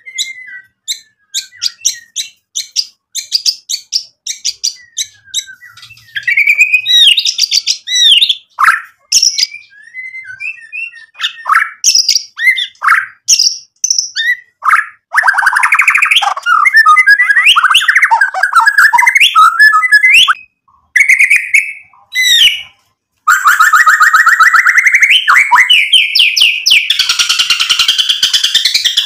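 Male white-rumped shama singing: a quick series of sharp clicking notes first, then varied whistled phrases. About halfway in it breaks into a fast, dense, almost unbroken stream of trills and mixed song phrases, with two brief pauses.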